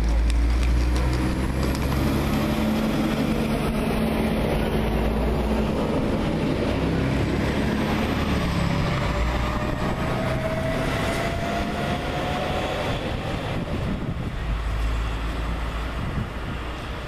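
SA134 (Siemens Desiro) diesel railcar pulling away and accelerating, its diesel engine running under load with a low rumble. A whine rises slowly in pitch about halfway through as it gathers speed.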